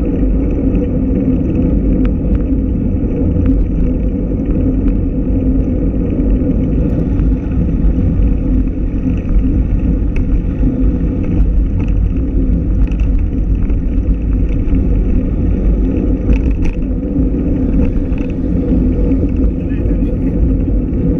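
Steady wind noise and road-tyre rumble on the microphone of a camera moving along with road bicycles.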